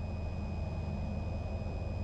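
Cessna 172 Skyhawk's piston engine and fixed-pitch propeller droning steadily, heard from inside the cabin, with a thin steady high whine over it.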